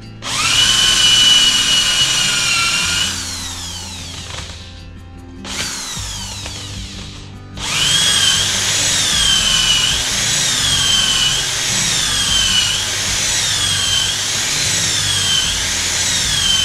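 Handheld electric drill with a Forstner bit boring into wood. The motor whines up suddenly about a quarter second in, runs for about three seconds and spins down; after a pause it starts again and runs on, its pitch sagging and recovering about every second and a half as the bit bites into the wood.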